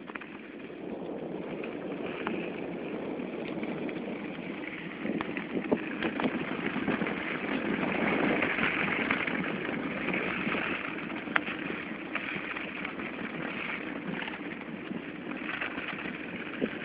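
Bicycle rolling over a packed-snow road: steady tyre noise on the snow with wind buffeting the microphone and scattered clicks and rattles from the bike.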